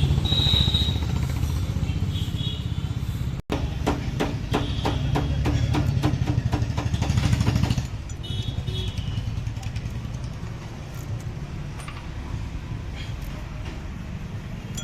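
Steady low engine rumble. Between about three and a half and eight seconds in there is a quick run of clicks, about four a second, over a louder rumble, which then drops back.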